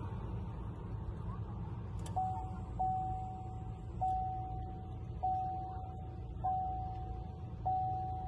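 Car's warning chime dinging, about one ding every 1.2 seconds starting about two seconds in, each a single tone that fades away, over a steady low hum.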